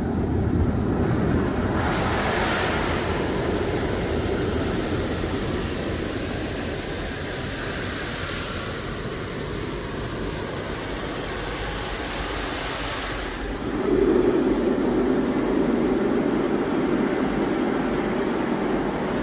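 Automatic tunnel car wash heard from inside the car: water spraying and running over the roof and windows as a steady rush, with a hissing spray from about two seconds in until about thirteen seconds. About fourteen seconds in, a louder, deeper rumble starts as the rotating brushes scrub the car's side.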